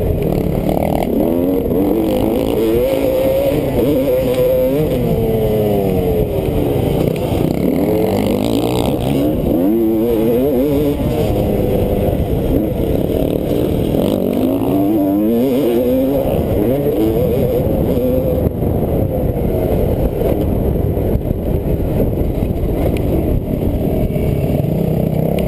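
Off-road racing engine heard from an onboard camera during a motocross race, revving up and down again and again as the rider accelerates and backs off through the track's corners and straights, with rough rushing noise underneath.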